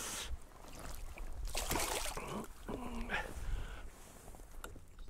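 A person's breath followed by a short wordless hum whose pitch bends up and down for about a second, over low wind rumble on the microphone.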